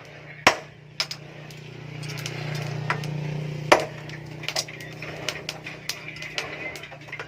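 Hammer blows on metal at a forge: sharp ringing strikes, the loudest about half a second in and near the middle, with lighter taps after. A steady low hum with a hiss runs underneath and swells in the middle.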